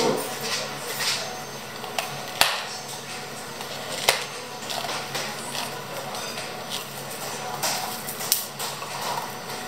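Plastic iced-drink cups being finished on a counter: milk poured from a carton at the start, then sharp clicks as clear plastic dome lids are snapped onto the cups, and light plastic ticks and rustles as straws go in near the end, over a steady low hum.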